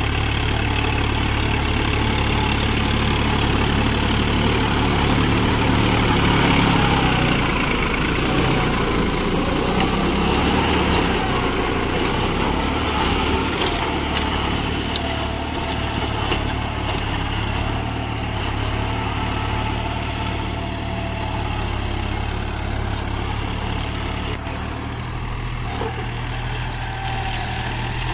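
New Holland tractor's diesel engine running steadily under load in low second gear, driving a rotavator through its 540 PTO, with the rotavator tines churning soil and cane stubble.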